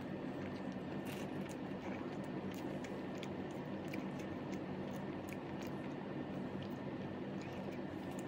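A person eating rice by hand: scattered faint clicks and squishes of chewing and of fingers mixing mutton biryani, over a steady low hum.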